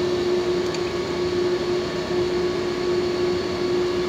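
Steady machine hum with one constant tone over a noisy whir, from machinery running in the workshop.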